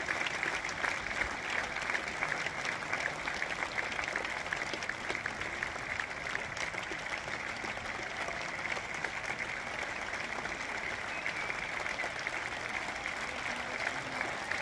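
Large audience applauding steadily at an opera curtain call, a dense mass of overlapping hand claps.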